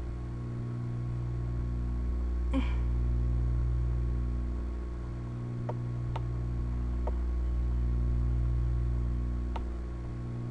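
Steady low electrical hum of the recording setup, swelling and dipping slowly, with a few faint computer mouse clicks in the second half as the file list is scrolled.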